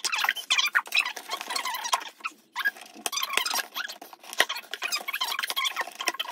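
Corrugated cardboard box being pulled open along its cut, taped seam: cardboard flaps and packing tape squeaking, scraping and crackling against each other, with a short lull about halfway through.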